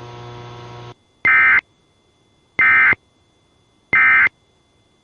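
A steady radio hum that cuts off about a second in, then three short, loud buzzy data bursts from a NOAA Weather Radio transmitter, about 1.3 seconds apart: the SAME end-of-message (EOM) tones that close an EAS required weekly test.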